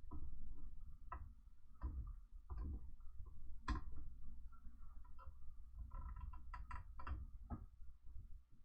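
Creality Ender 3 3D printer running: a low rumble and a faint wavering whine that come and go in short moves, with irregular sharp clicks throughout.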